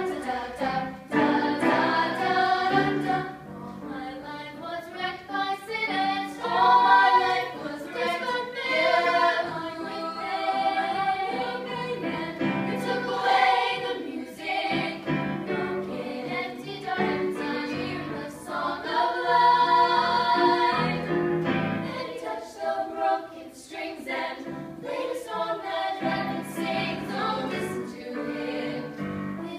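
Girls' choir singing, accompanied on an electronic keyboard.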